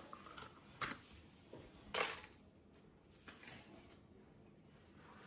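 Plastic lid being pulled off a paper cup of frozen banana ice cream and the frozen pop eased out by hand: a sharp click a little under a second in, a louder crackle about two seconds in, then a few soft taps.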